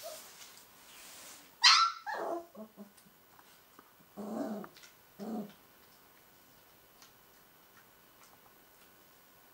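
Northern Inuit puppy yapping: a sharp high yelp that falls in pitch nearly two seconds in, a few short yips right after, then two short low growls around four and five seconds in.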